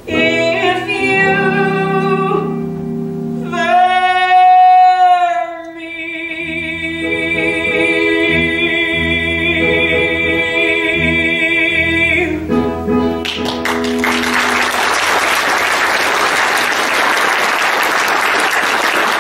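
A woman sings the closing phrases of a musical-theatre song over instrumental accompaniment, holding long final notes with vibrato until about twelve seconds in. Then an audience applauds.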